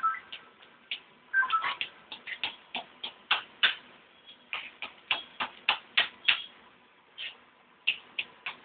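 Hot oil in a wide frying pan popping and crackling as rings of amriti batter deep-fry, in irregular sharp pops a few times a second.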